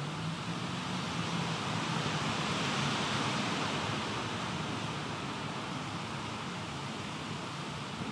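Steady hiss of heavy typhoon rain and wind, swelling a little about three seconds in and then easing.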